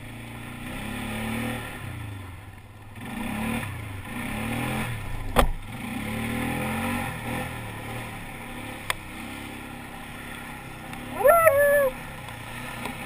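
ATV engine running and revving up and down as the quad is ridden over dirt. A sharp knock comes about five seconds in, and a short high-pitched sound near the end.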